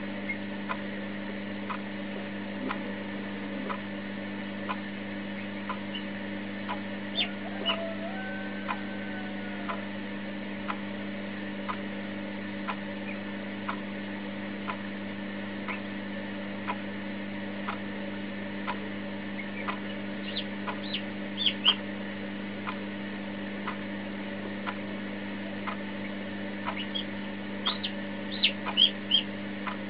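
A newly hatching Marans chick peeping: a few short high peeps about two-thirds of the way in and a quick run of them near the end. Under it, a steady electrical hum and an even tick about once a second.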